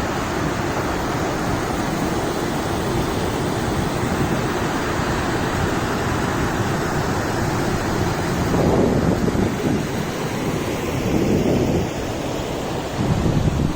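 Wind blowing across the microphone: a steady rushing noise with stronger low gusts about eight and a half, eleven and thirteen seconds in.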